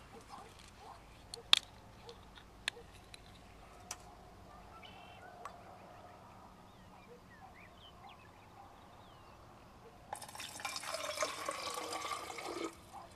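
Water poured from a small stainless steel cup into a Klean Kanteen 40 oz wide-mouth stainless steel water bottle, running for about two and a half seconds near the end. Before that, a few light clicks.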